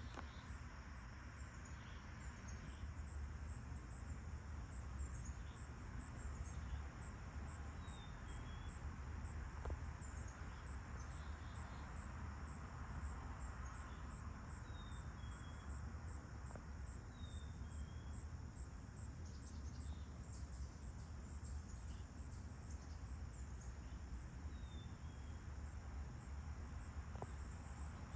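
Late-summer insects, crickets among them, trilling steadily with a fast, even pulsing chirp. A bird gives a short falling chirp four times. A low, steady rumble runs underneath.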